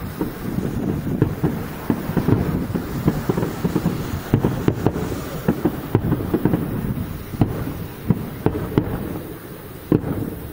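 Aerial firework shells bursting in a rapid, irregular run of booms and cracks, over the low rumble of wind on the microphone.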